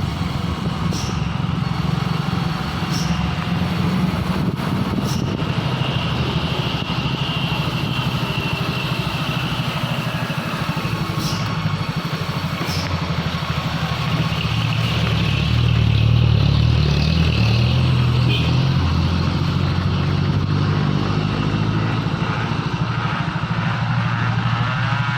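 Road vehicle engines running steadily as traffic passes, growing louder about 15 seconds in as a vehicle comes close.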